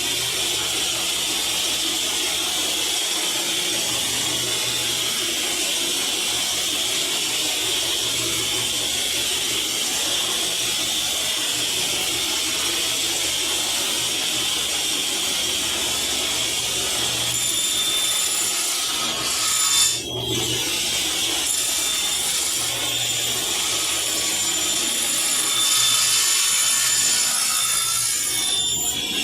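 Electric power saw cutting MDF board, running steadily with a brief dip about twenty seconds in.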